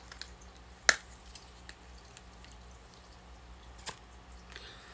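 A small jar of gel under-eye patches being handled and opened: a sharp click about a second in, a softer click near the end, and a few faint ticks in between, over a low steady hum.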